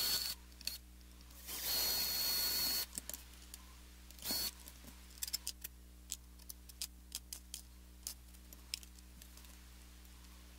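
Cordless electric screwdriver running in short spells with a high whine as it backs out the pickup mounting screws on a guitar pickguard, three times in the first few seconds. Then light clicks of small screws, springs and metal parts being set down on the bench and in a plastic tray.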